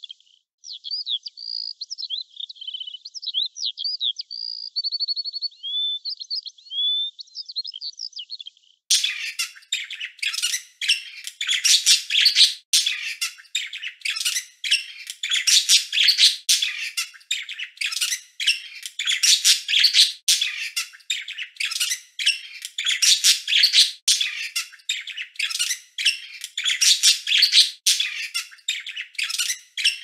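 Birdsong. For about the first nine seconds, high whistled chirps and a quick trill from a songbird. It then switches abruptly to a louder, dense run of rapid chirping and chattering that sounds like many small birds at once.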